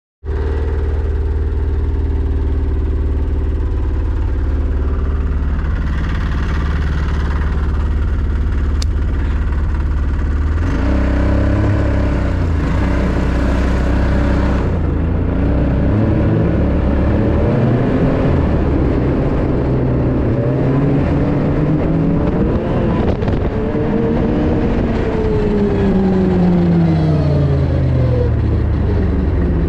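Snowmobile engine idling steadily, then from about ten seconds in revving and pulling away across snow, its pitch rising and falling with the throttle.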